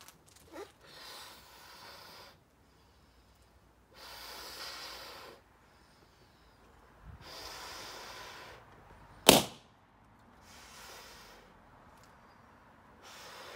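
Breath blown in long puffs into a 16-inch pearlised latex balloon, five exhales with short quiet gaps for inhaling. A single sharp pop about nine seconds in is the loudest sound: another balloon bursting by itself.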